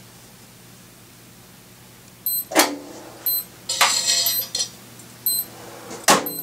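A small electric kiln's door clanks open, metal scrapes as the stainless-steel mesh screen with the fired piece is drawn out, and the door shuts with a clunk. A few very short high beeps sound among these noises.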